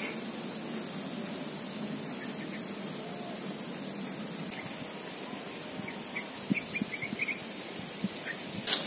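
Steady, high-pitched drone of insects in the forest, with a few faint short chirps over it about six to seven seconds in and some soft ticks of twigs being handled near the end.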